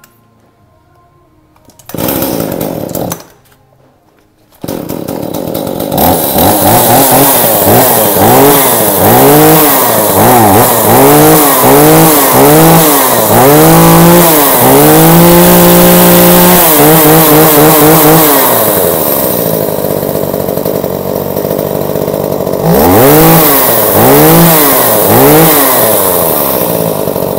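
Tanaka PowerMate two-stroke chainsaw engine test-run: a short burst of running about two seconds in that stops, then it starts again and is revved up and down in quick blips about once a second, held at high revs for a couple of seconds, settles to a steady idle, and is blipped three more times near the end.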